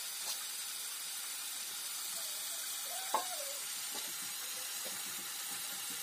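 Chopped meat frying in a steel kadai over a gas flame: a steady sizzle and hiss, with one brief tap about three seconds in.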